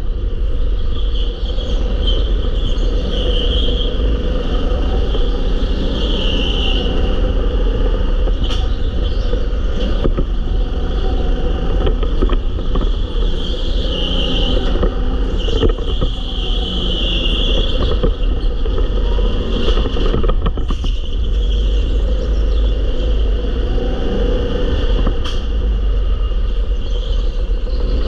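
Go-kart driven at speed around an indoor track, heard from an onboard camera: a loud, steady rumble of the kart running, with a handful of sharp knocks along the way.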